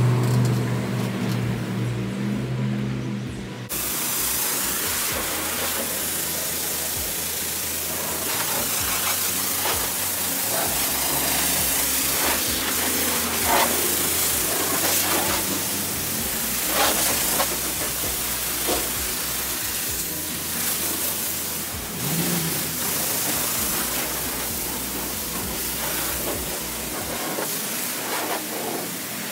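Self-serve car wash high-pressure spray wand hissing steadily as its jet of water plays over a pickup truck. A few seconds of low steady hum come before the spray, which starts suddenly.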